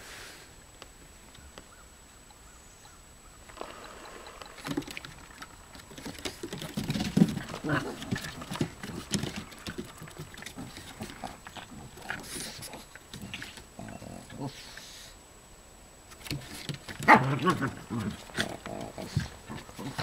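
Two Boston terriers play-fighting, with irregular bursts of growling that start a few seconds in and are loudest near the end.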